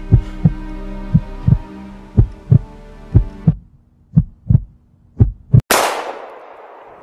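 Sound-effect heartbeat thumping in lub-dub pairs about once a second over a low steady drone that cuts out about halfway. Near the end a single handgun shot cracks, the loudest sound, with a long noisy decay.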